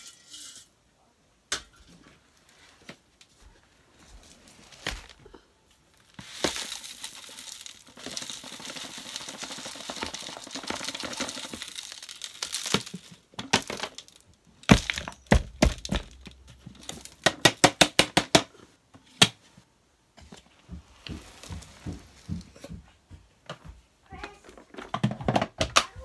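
Gritty dirt, crumbs and coins being poured and dumped from a plastic tub onto carpet, with the vacuum off. There is a rustling, sandy pour, and about halfway through a run of sharp clicks and knocks as coins and debris hit the tub and the floor.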